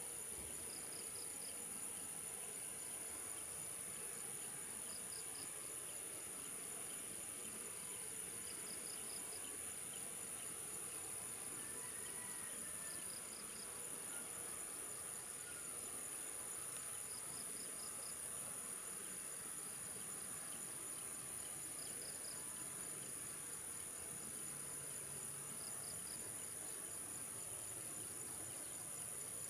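Insects chirping: a steady high-pitched drone with short chirps of a few quick pulses repeating about every four seconds.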